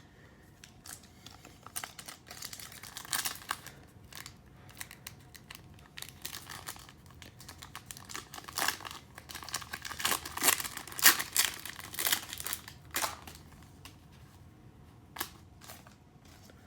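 Trading card pack wrapper crinkling as it is torn open and handled: an irregular run of crackles and rustles, busiest and loudest about halfway through.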